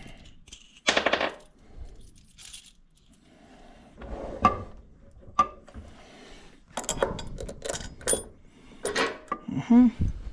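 Metal tools and hardware handled on a workbench: scattered clinks and knocks, with a short rattling burst about a second in and a run of quick clicks in the second half.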